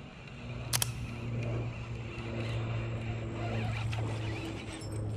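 Background music fading in: a deep held bass note under higher notes that change pitch every second or two. There is one sharp click about a second in.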